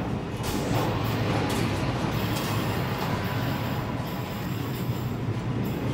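Sound effect of the meat grinder anomaly's blade passing over: a steady rushing noise with a low rumble underneath, holding even for about six seconds.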